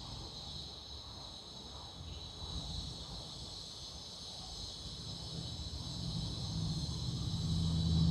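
Faint steady high-pitched insect chirring in the background, with a low engine rumble that grows louder over the last few seconds.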